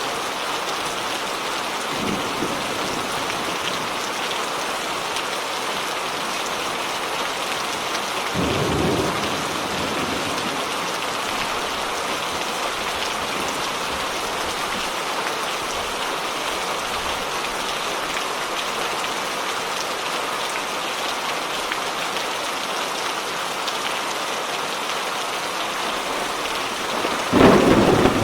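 Steady rain falling, with thunder rumbling: a brief low rumble about eight seconds in and a louder, sharper peal of thunder near the end.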